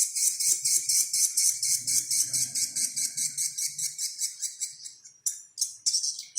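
Bird lure call: a rapid, even run of high chirps, about eight a second, that breaks off about five seconds in and starts again near the end.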